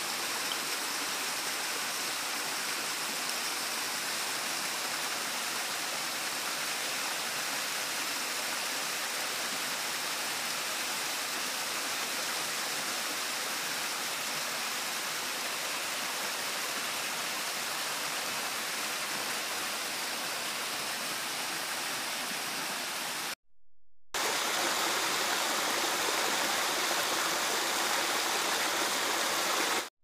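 Small waterfall cascading over rock steps: a steady rush of water. About three quarters of the way through it cuts out for under a second and comes back a little louder.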